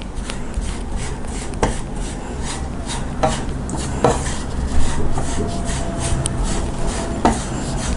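Wooden spatula stirring and scraping crumbly gram flour roasting in ghee in a nonstick pan: a run of uneven scrapes and light knocks against the pan.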